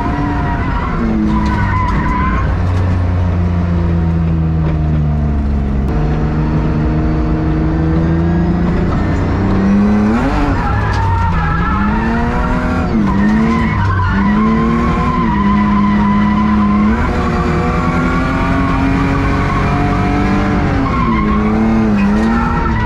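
BMW E36 engine revving up and down repeatedly as the car is drifted, with tyres skidding underneath. It is very loud because half of its exhaust is missing.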